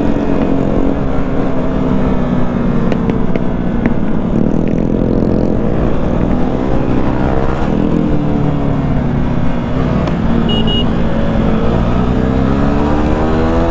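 Motorcycle engine heard from the rider's seat, its pitch rising and falling with the throttle through the ride, over steady wind rumble on the microphone.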